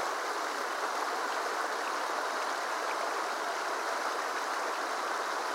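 Creek water running steadily over rocks, an even rushing with no breaks.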